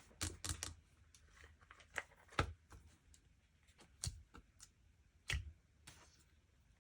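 Slime being handled and pressed, giving sharp little clicks and pops: a quick cluster of three in the first second, then single pops roughly every second.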